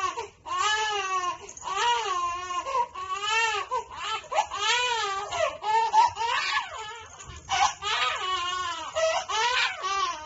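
Young infant crying: a run of cries that rise and fall in pitch, about one a second, with short catches of breath between.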